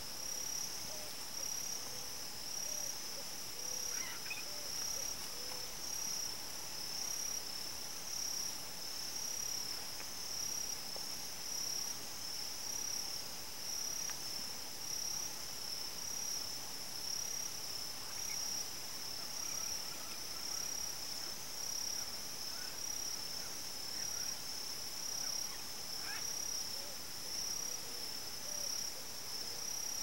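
Dusk insect chorus: a high-pitched trill that pulses in an even beat without letup, with a few faint bird calls scattered through it.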